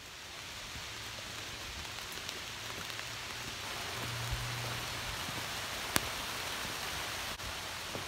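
Rain falling on forest leaves: a steady hiss that grows a little louder, with a single sharp click about six seconds in.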